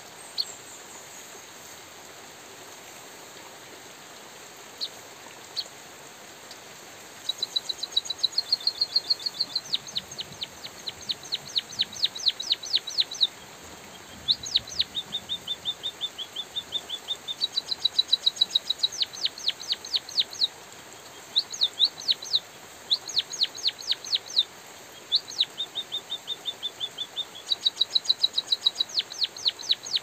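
White-headed munia singing: a few single sharp notes, then from about seven seconds in repeated bouts of fast ticking notes with thin high whistles, phrase after phrase. Steady hiss of light drizzle underneath.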